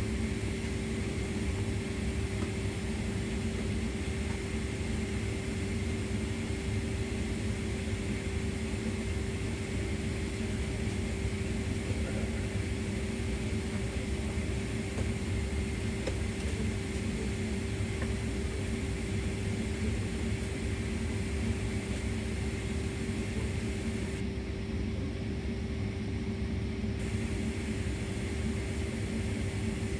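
Steady airflow and machinery hum inside the cabin of a Boeing 767-400ER airliner parked at the gate, with a constant low tone running under an even rushing noise.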